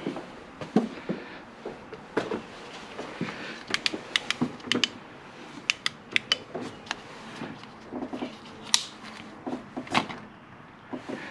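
Irregular clicks, taps and light knocks of hands handling parts in the engine bay, as a cap is pulled off a vacuum nipple on the intake.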